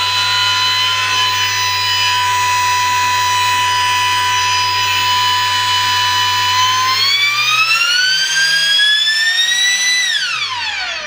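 3D-printed 80 mm centrifugal impeller fan on a brushless motor, running with a loud, steady high whine. About seven seconds in the whine rises in pitch as the fan speeds up, and near the end it drops away quickly as the fan spins down.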